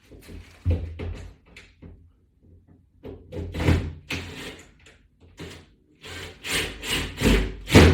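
Irregular knocks, clicks and clatters of wall-mounting hardware being handled, with screws and a screwdriver worked against a wall-mounted bar.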